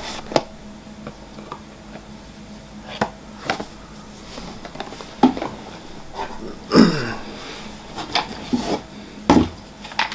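Rummaging in a cardboard box of plastic bottles: irregular knocks, taps and rustles as the items are moved and one bottle is lifted out, the loudest knocks in the second half.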